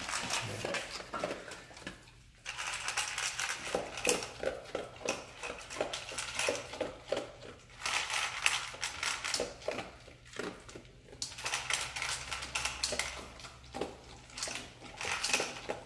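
A dog crunching dry kibble from a stainless steel bowl, in runs of quick crackly bites with short pauses about two seconds in and again about ten seconds in.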